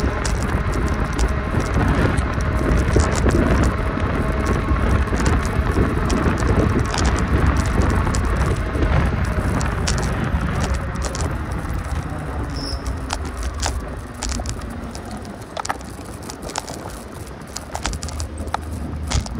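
Noise of a ride in motion: low wind rumble on the microphone and road noise with scattered rattles and clicks. It eases off about two-thirds of the way through.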